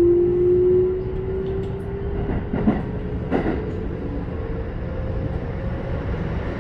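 Keikyu 1000 series EMU heard from inside the car: the Toyo IGBT-VVVF inverter traction motors whine in one tone that rises steadily in pitch as the train accelerates, over the low rumble of wheels on rail. Two sharp knocks come near the middle.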